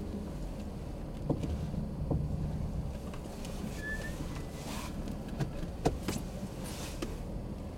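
Steady low rumble inside a parked car's cabin, with strong wind gusting against the car in brief rushes and a few light taps. A short high chirp comes about four seconds in.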